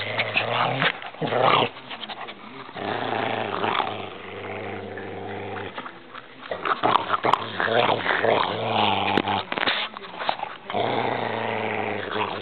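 A dog growling low in several long, drawn-out growls with short breaks between them, up close, as a cattle dog and a Shih Tzu tussle mouth to mouth.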